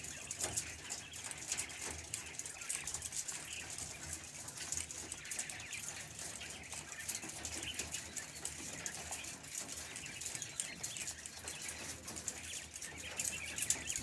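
A cage of young quail moving about: a busy patter of tiny clicks and scratches as they peck at feed and shuffle on the wire floor, with faint soft chirps now and then.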